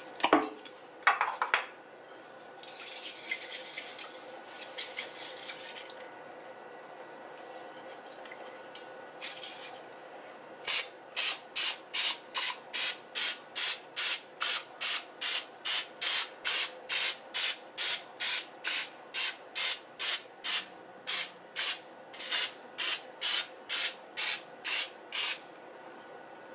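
Aerosol canola oil cooking spray hissing. There is a longer spray a few seconds in, then a long run of short, even squirts at about two a second. A couple of sharp knocks come in the first two seconds.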